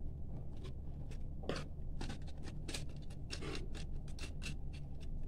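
Small clicks and scrapes of a screwdriver turning a terminal screw and a copper wire being worked into a plastic switch-board terminal, coming in a quick irregular run.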